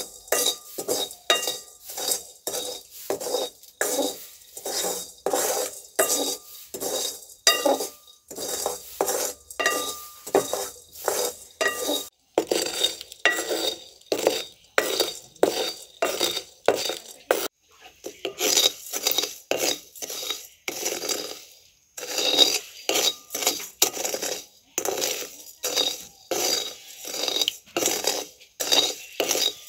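A flat spatula scraping and stirring rice around a cast-iron wok in quick, repeated strokes, about two a second, as the leftover rice grains dry-roast to golden brown.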